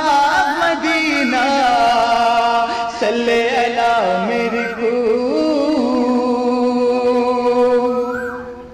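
A man singing a naat unaccompanied, drawing out a long, ornamented melismatic note with wavering pitch that fades near the end.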